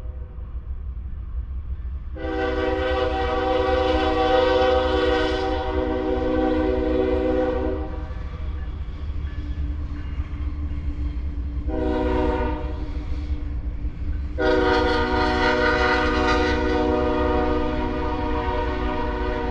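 Freight locomotive's multi-note air horn sounding a long blast, a short one and another long one, the close of the long-long-short-long grade-crossing signal. A steady low rumble runs underneath.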